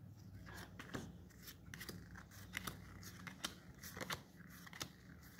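Pokémon trading cards slid one behind another in the hands as a booster pack is looked through: a quiet, irregular string of crisp card snaps and swishes.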